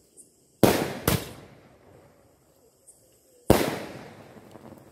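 Aerial fireworks bursting in the sky: two sharp bangs about half a second apart, less than a second in, then a third bang about three and a half seconds in, each trailing off in a long echoing tail.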